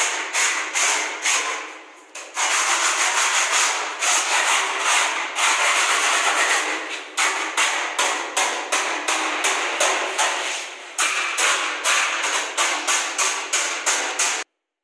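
A hand tool scraped over a plastered wall in quick, repeated strokes, about three a second. The wall is being scraped down to knock off lumps, grit and deposits from the plaster and leave a smooth surface ready for the first coat of paint. The scraping stops abruptly near the end.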